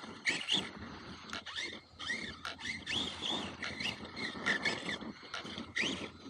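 Electric RC monster truck (the Mt8) being driven over dirt. Its motor whine rises and falls many times with the throttle, with scattered knocks from the truck bouncing over the ground.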